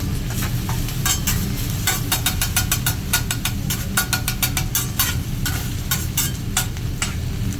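Hibachi chef's metal spatulas clicking and scraping rapidly on a teppanyaki griddle as food sizzles, with a steady low rumble under it. The clicks come thick from about a second in and thin out near the end.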